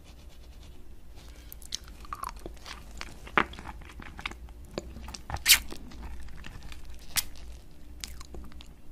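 Biting and chewing a Minion-shaped candy on a ring: scattered crisp crunches and wet mouth clicks. The loudest crunch comes about five and a half seconds in.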